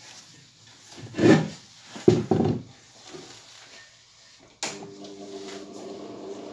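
Rubbing and knocking as speaker wires are handled and fitted to the terminals of a rebuilt 18-inch bass speaker. About two-thirds of the way through, a click and then a steady hum that slowly grows louder, as the speaker is powered for its sound test.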